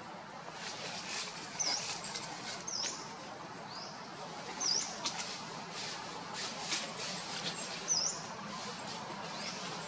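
A small bird chirping: about five short, high chirps that dip and rise in pitch, at uneven intervals over a steady outdoor hiss, with scattered faint ticks.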